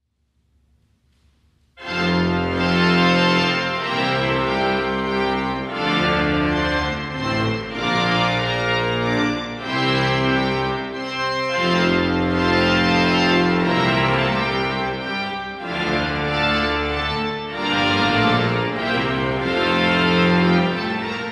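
Pipe organ playing full sustained chords on the manuals with deep pedal bass notes. It enters suddenly about two seconds in, after a near-silent start.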